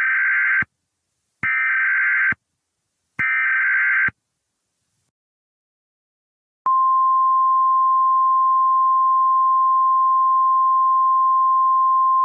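Emergency Alert System SAME header: three short, harsh, screeching data bursts a little under a second apart, then a pause of about two and a half seconds. About halfway through, a loud, steady single-pitch attention tone begins and holds unchanged.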